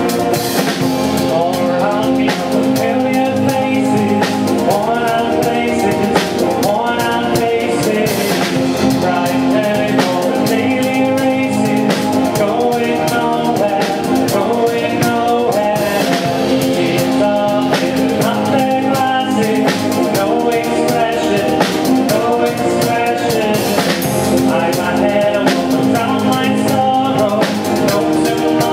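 Live acoustic band playing a song: several strummed acoustic guitars and other string instruments over a steady percussion beat, with a woman and a man singing into microphones.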